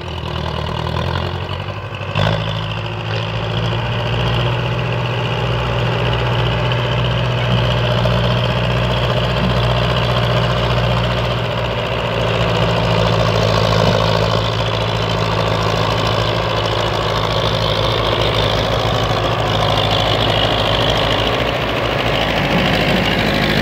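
Diesel engines of tractors hauling a heavily loaded soil trolley: a Belarus 510 pulling, with a second tractor coupled behind, running steadily under load. There is a short knock about two seconds in, and the sound grows a little louder later on.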